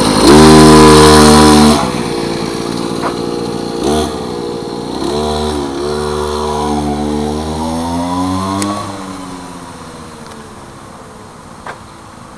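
Small engine of a 50 cc gas stand-up scooter, loud and high-revving as it passes close by. It then drops away, climbs steadily in pitch as the scooter accelerates, and fades into the distance after the throttle comes off.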